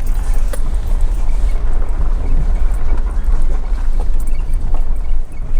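Vehicle driving at low speed: a steady low rumble of engine and road noise.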